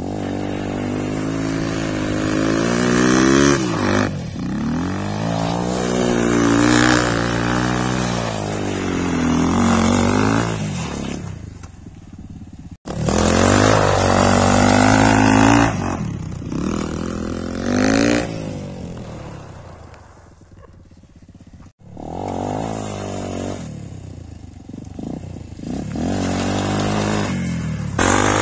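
Kuba Cross motorcycle engine revved hard again and again, its pitch climbing and falling in long sweeps, while the rear tyre spins during a burnout. The sound cuts off abruptly twice, a little before halfway and again about three-quarters through.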